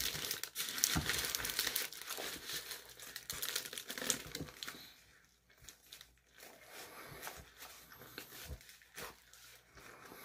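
Paper wrapper around a shawarma wrap crinkling and rustling as it is gripped and bitten into, loudest in the first half; softer after about five seconds, with small wet chewing sounds.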